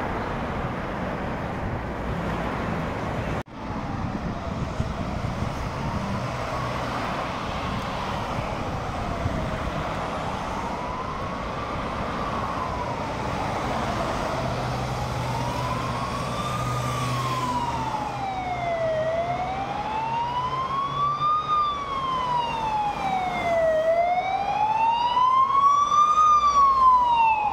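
Ambulance siren in a slow wail, one tone sweeping up and down about every five seconds. It grows louder as the ambulance approaches, over a steady hum of road traffic.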